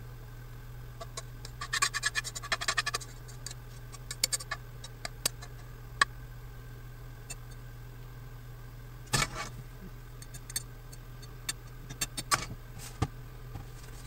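Metal tongs clicking and scraping against a frying pan and a ceramic plate as linguine is lifted and served. There are scattered sharp clicks, with a quick run of them about two seconds in, over a steady low hum.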